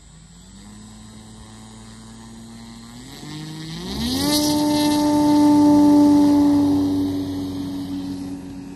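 Engine of a radio-controlled propeller model plane running up to full throttle. Its pitch climbs in steps, then holds steady while the sound grows loud, peaks a couple of seconds later and fades.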